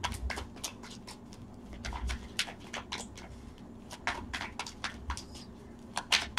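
A deck of tarot cards being shuffled by hand: a quick, irregular run of soft card slaps and clicks.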